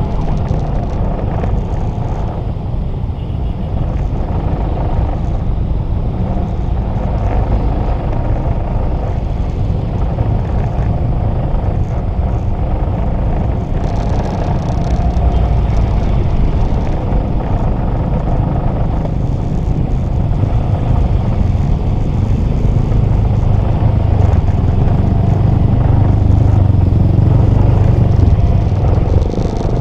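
Motorcycle engine running with a continuous low rumble while riding slowly through congested traffic, with cars and other motorbikes close around. The engine gets louder over the last few seconds.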